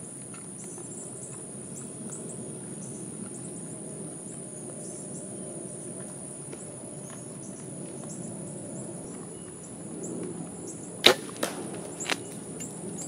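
Bow shot at feeding wild hogs: a single sharp crack about eleven seconds in as the arrow is loosed and strikes, then two smaller knocks within the next second as the hogs bolt. Before the shot, a steady high insect drone runs under the outdoor background.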